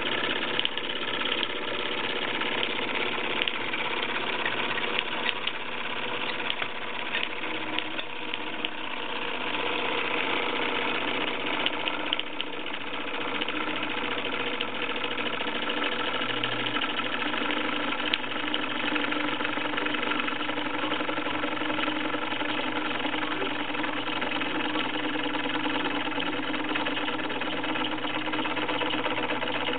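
Small homemade single-cylinder steam engine running steadily at speed, a continuous fast mechanical rattle with occasional clicks.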